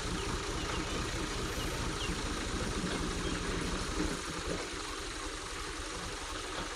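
Tractor diesel engine idling with a steady low beat. The beat softens about four seconds in.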